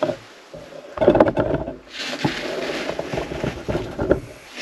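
Handling noise from the camera being turned around: a few sharp knocks about a second in, then a stretch of rustling and scraping with small clicks that stops near the end.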